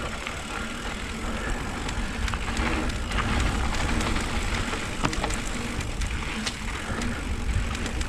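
Mountain bike ridden along a dirt trail: a steady rumble of wind on the microphone and tyre noise, with scattered clicks and rattles from the bike.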